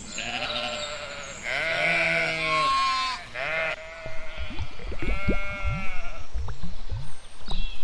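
Sheep bleating: several long, wavering bleats one after another. A low, fast pulsing sound joins underneath in the second half.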